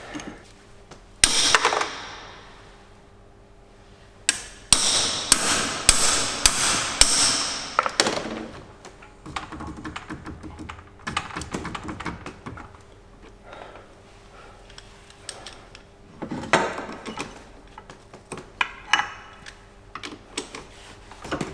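Hammer blows on a ring spanner fitted to the magneto rotor nut of a 154FMI moped engine: sharp metallic strikes that ring on. There is one blow about a second in, a run of about six blows a little over half a second apart, then lighter knocking and clinking, and a few more blows near the end. The rotor nut is stuck and will not come off this way.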